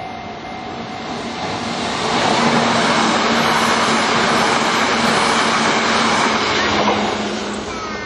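Hanshin Electric Railway blue-and-cream commuter train running past a level crossing. Its wheel and running noise swells from about a second in, holds loud for several seconds as the cars go by, and fades near the end. The crossing's warning bell is heard at the start before the train drowns it out.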